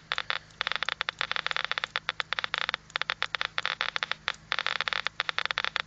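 Eberline E-140 Geiger counter with an HP-260 pancake probe clicking rapidly and irregularly, many clicks a second, at over a thousand counts per minute. It is counting rain-deposited contamination that the uploader matches to radon decay products washed out of the air.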